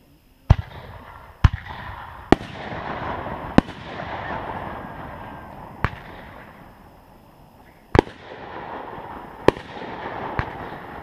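Consumer fireworks going off: about eight sharp bangs at irregular intervals, with a rushing hiss between them as the shells rise and burst.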